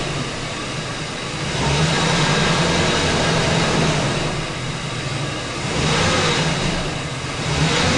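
Ford 4.6 V8 engine of a 2004 F-150 revving up and easing off in swells, with the 4R75W automatic transmission held in Drive. It is being run for a forward clutch pressure test in which the pressure keeps falling away in Drive.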